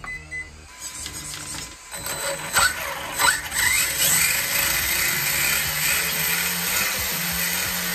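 Brushless motor and drivetrain of an RC truck free-spinning the wheels on a stand, as a test run of the motor just rebuilt with new bearings. A brief beep from the speed controller at the start, two quick throttle blips rising in pitch about two and three seconds in, then a steady whir held at speed.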